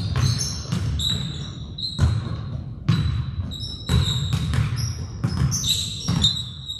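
Basketball bouncing on a gym floor in live play, a thump every half second to a second at an uneven pace, with high-pitched sneaker squeaks on the court.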